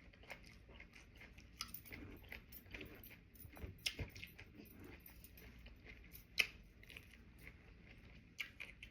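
A person chewing and biting sushi close to the microphone: wet mouth smacks and clicks at an uneven pace, with a sharper click about six seconds in.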